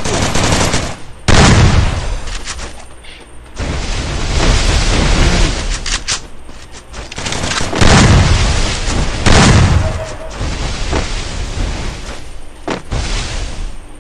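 Video-game gunfire: repeated bursts of rapid shots with heavy booms, loudest about a second in and again around eight and nine seconds in.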